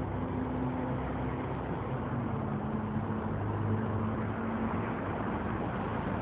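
Steady rumble and hiss of road traffic, with engine hums that come and go and shift in pitch.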